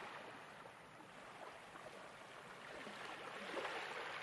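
Gentle ocean waves washing in: a soft, even hiss that swells about three and a half seconds in and then eases off.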